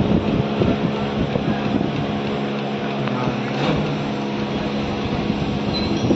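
An engine running steadily, a low hum with a constant pitch, over general yard noise.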